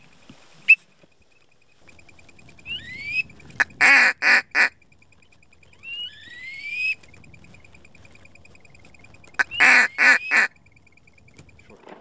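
Duck calls blown in a marsh blind: two runs of three loud, quick quacks, about four and ten seconds in, with rising whistled notes before each run. A steady high trill runs underneath.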